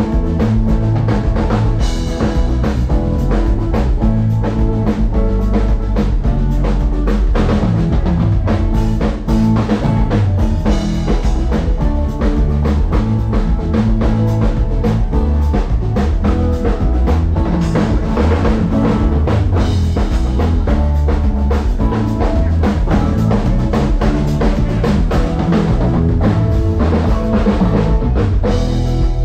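A band playing loud amplified music through a PA during a soundcheck. A full drum kit with kick and snare drives a steady beat under bass and guitar.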